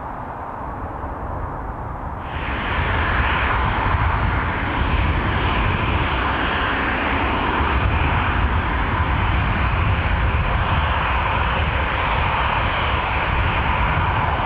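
Jet noise that is faint at first, then about two seconds in jumps abruptly to a loud, steady roar from the two rear-mounted Rolls-Royce Tay turbofans of a Fokker 70/100 jet, heard from behind.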